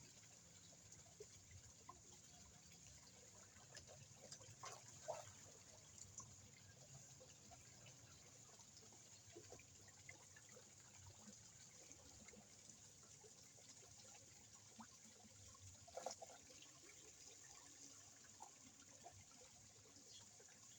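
Faint pond water: a light trickle with small drips and splashes at the surface, two slightly louder splashes about five seconds in and again near sixteen seconds.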